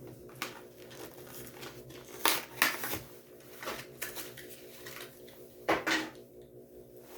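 Handling and opening a die-cast toy car's blister package: a few sharp plastic crackles and knocks, the loudest about two and a half seconds in and again near six seconds, over a steady low hum.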